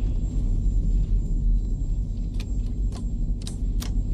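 Steady low drone of a B-52 bomber's engines heard inside the cockpit. A quick series of sharp clicks in the second half comes from toggle switches being flipped on the bomb control panel.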